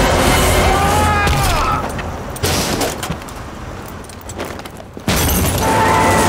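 Action-film soundtrack of music and stunt effects: a heavy thud about two and a half seconds in, then a sudden loud crash about five seconds in as a body lands on a car and its windshield shatters.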